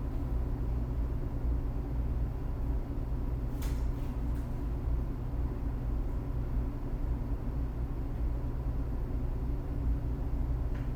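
Steady low background hum, with a couple of faint short taps about four seconds in.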